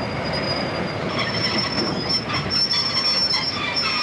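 Steam-hauled freight train's wheels and brakes squealing in a high steady tone over the rumble of the rolling train as it brakes for a stop. The squeal grows stronger and picks up further tones about a second in.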